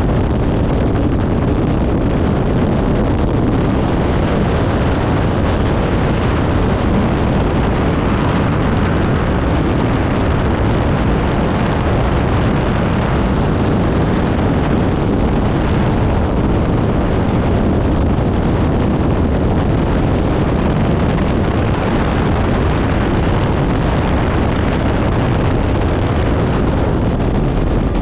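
Helicopter in flight heard from on board: a loud, steady rush of rotor and engine noise with wind on the microphone.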